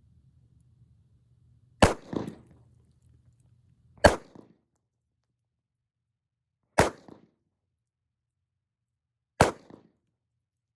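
Four single gunshots from a Ruger LCRx 9mm snub-nose revolver, spaced about two to three seconds apart, each followed by a short echo.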